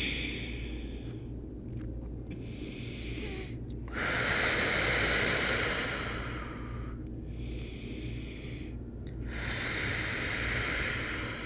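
A woman's slow, deep breaths, each long and airy. The loudest breath starts about four seconds in and lasts some three seconds.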